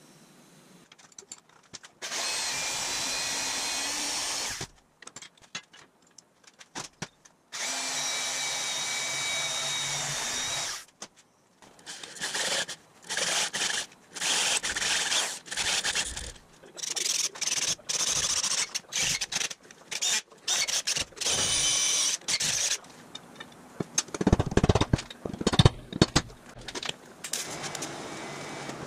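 Handheld drill boring into the end of a steel tube: two steady runs of a few seconds each, then many short stop-start bursts. Irregular knocks and clatter follow near the end.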